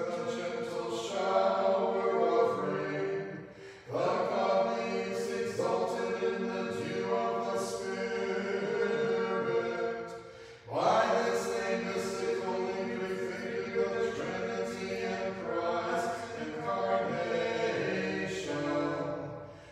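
Church choir singing Orthodox vespers chant a cappella, in long held phrases that pause briefly about four seconds in and again about ten seconds in.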